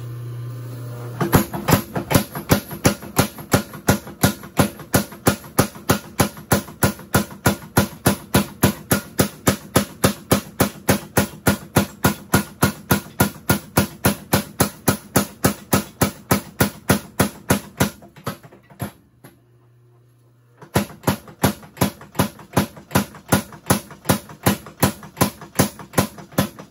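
Homemade 53 lb beam power hammer, run off a temporary cam, striking a red-hot steel bar in steady repeated blows of about three to four a second. A steady hum runs under the blows; it is heard alone at the start and during a pause of about two seconds two-thirds of the way through, after which the blows resume.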